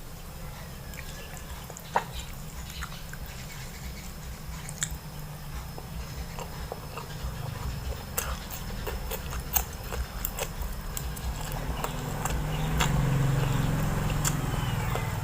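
Close-up chewing and biting of oily mutton fat, with scattered wet mouth clicks and smacks, the sharpest about two seconds in and again near the middle. A steady low hum runs underneath, and the chewing grows fuller near the end.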